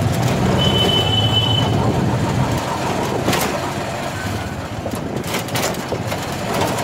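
Auto-rickshaw running through the street, its engine humming steadily, with a few knocks and rattles from the ride. A brief high-pitched tone sounds for about a second, just after the start.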